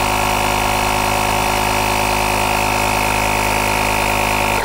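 Cordless air compressor built into a JF.EGWO jump starter running steadily as it pumps up a van tyre through its hose, a loud, even motor buzz that cuts off abruptly at the end, as the unit stops by itself at its preset pressure.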